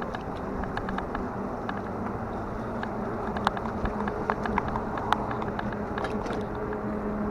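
Steady outdoor vehicle noise with a low hum and scattered short clicks and rattles, most frequent in the middle, typical of an electric fat-tire bike being ridden.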